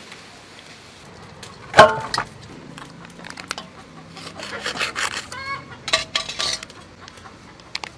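A kitchen knife saws through a plastic seasoning sachet with a scratchy rasping, and the packet crinkles as the powder is shaken out. A single sharp, loud sound comes about two seconds in.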